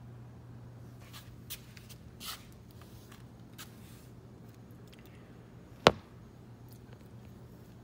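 Small pet rodent scratching and rustling faintly in its bedding as it moves about, a few short scrapes in the first few seconds, over a steady low hum. One sharp click about six seconds in is the loudest sound.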